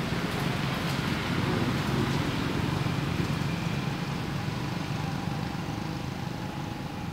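Steady low background rumble, with no distinct events.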